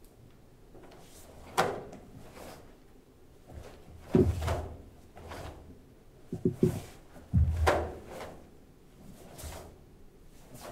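Wooden bo staff swishing through the air in a string of swings and strikes, mixed with thuds of bare feet stepping and stamping on a wooden stage floor. There are heavy thuds about 4 and 7.5 seconds in, and a quick cluster of knocks around 6.5 seconds.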